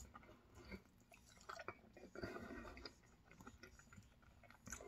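Faint chewing of a mouthful of food with the lips closed, with small scattered mouth clicks.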